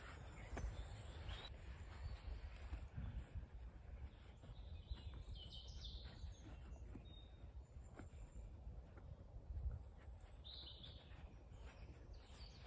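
Low wind noise on the microphone in stormy woodland, with a bird calling briefly twice, about halfway and again near the end.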